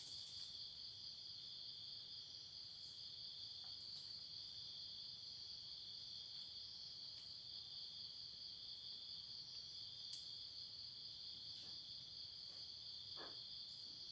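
Steady, high-pitched chorus of crickets, with a few faint clicks.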